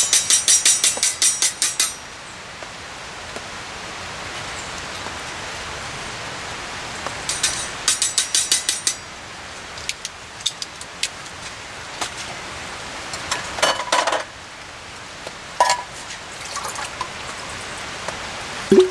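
Fire steel scraped hard in rapid rasping strokes to light the tinder in a small wood stove: one burst at the start and another about seven seconds in. Scattered light metal clinks and knocks follow, and water splashes briefly into a steel cup near the end, over a steady background hiss.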